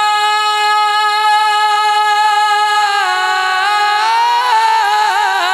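A man's unaccompanied singing voice reciting a devotional kalam. He holds one long high note for about three seconds, then ornaments it with wavering turns.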